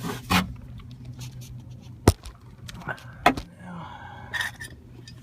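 A few sharp clicks and knocks of parts being handled and fitted in a car door, the loudest about two seconds in, over a steady low hum.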